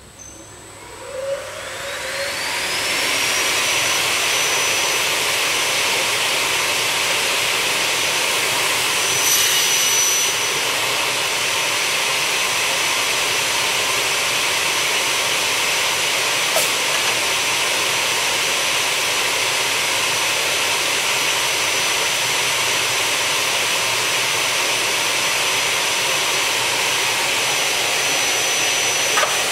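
Blade motors of a double-head cut-off saw with 530 mm carbide-tipped blades spinning up, the whine rising in pitch over the first three seconds, then running at a steady high whine over a loud rush of air. A brief louder rush comes about nine seconds in.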